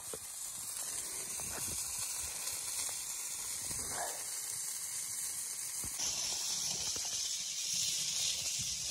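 Food sizzling on a grill over a small wood-burning stove: a steady hiss with a few faint crackles. The hiss gets louder about six seconds in.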